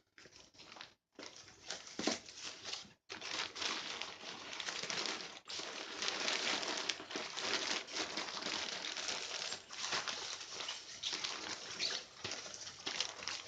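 Crinkling and rustling as a tent-stake pouch and its packaging are handled and opened. The sound cuts out completely twice, briefly, in the first three seconds.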